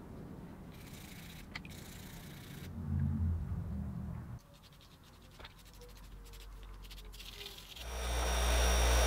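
Faint scratching and scraping of a small wire brush scrubbing loose rust off a metal drill part fresh from a vinegar bath, with a few light clicks. About eight seconds in, a steady bench grinder motor hum rises in and becomes the loudest sound.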